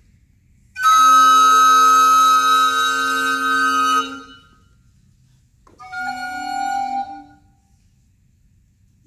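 Recorder quintet sounding a loud held chord of several sustained notes for about three seconds. After a short pause comes a softer, shorter held chord, then silence.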